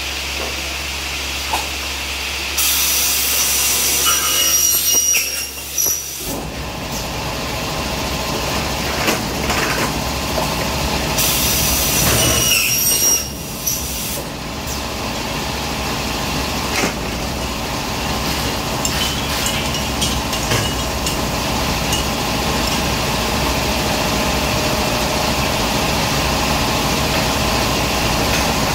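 A Ginifon aluminium cutting saw with pneumatic clamps runs with a steady motor hum. Its blade cuts through aluminium profile with a high screech twice, about three seconds in and again about eleven seconds in.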